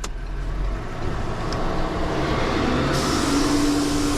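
Tow truck running, with a steady whine coming in about three seconds in as it gets ready to drop a car off its bed.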